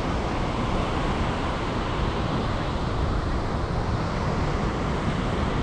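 Steady wash of ocean surf breaking and running up the beach, with wind on the microphone.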